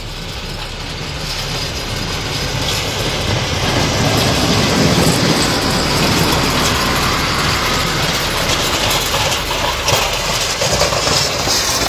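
Mercedes-Benz snowplow truck running and pushing snow with its front blade, a steady dense rumble and rush that swells over the first few seconds as it comes closer.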